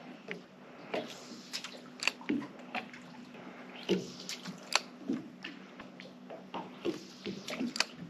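Water dripping and lapping in irregular small plops and clicks, a few of them louder, over a faint steady low hum.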